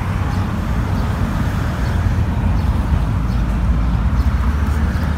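A steady low rumble of outdoor background noise, with a faint hiss above it.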